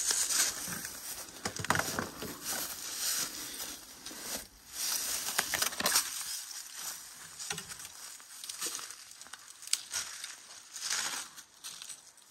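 Footsteps crunching and crackling through dry leaves, twigs and undergrowth, an irregular run of snaps that is busier in the first half and thins out to scattered cracks later.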